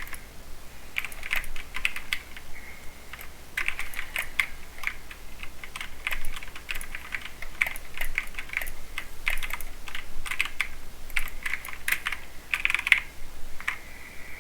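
Typing in quick runs of key clicks on a mechanical keyboard with Cherry MX Silver speed switches, which are linear switches, with short pauses between the runs.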